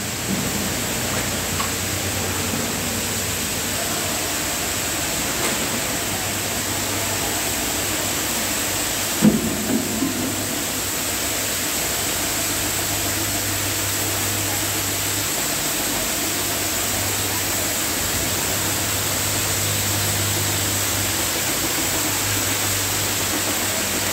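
Many screw-making machines running at once, a steady mechanical noise with a low hum underneath. A few sharp knocks come about nine seconds in.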